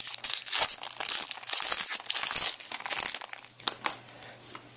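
Plastic-foil wrapper of a trading card pack being torn open and crinkled in the hands, dense and crackly for about three seconds, then dying down to a few faint ticks as the cards come out.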